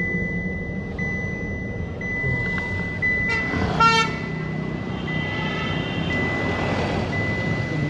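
Road traffic heard from inside a moving car: the car's steady running and road noise, and a vehicle horn that honks briefly and loudly about four seconds in. A fainter horn follows a second later, over a high electronic beep that breaks off about once a second.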